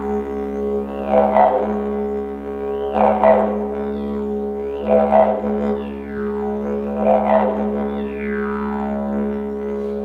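Didgeridoo drone held at a steady low pitch, with the tree-frog vocal effect voiced into it about every two seconds: each time a louder swell with a call sliding down in pitch.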